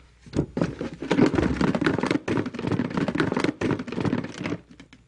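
Three numbered toy blocks rattling and knocking about inside a box as it is shaken, a busy clatter that stops shortly before the end.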